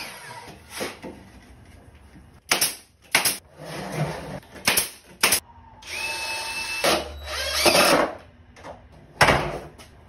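A cordless drill driving screws into pine framing lumber in a run of short bursts. About six seconds in there is a steady whine, which rises in pitch just before eight seconds, and a last loud burst comes near the end.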